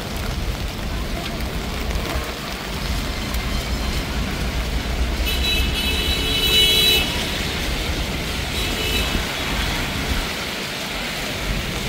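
Busy city street traffic on wet roads in the rain: a steady hiss and rumble of tyres and engines. A car horn sounds for about a second and a half about five seconds in, and a shorter, fainter horn follows near the nine-second mark.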